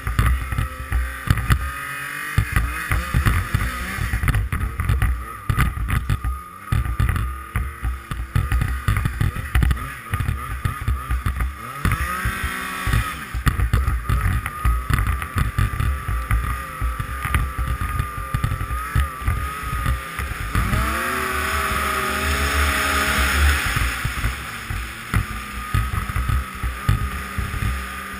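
Yamaha FX Nitro snowmobile's four-stroke three-cylinder engine running under throttle across snow. Its pitch rises as it accelerates, briefly a little under halfway through and more strongly about three-quarters through. Wind buffets the microphone.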